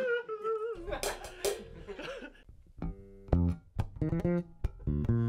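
Electric bass guitar starting to play: short plucked notes that settle into a held, ringing note near the end. A voice trails off at the start, and two short noisy hits come about a second in.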